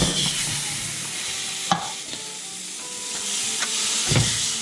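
Spam searing in a hot frying pan, sizzling steadily. There is a sharp click under two seconds in and a duller knock near the end.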